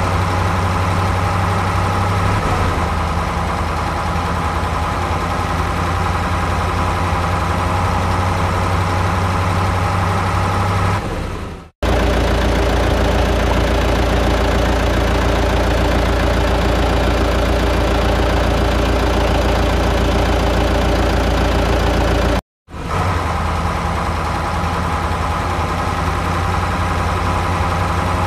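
Truck engine idling sound effect, running steadily, laid over footage of a toy truck. It cuts out abruptly twice, about 12 and 22 seconds in, and starts again straight away.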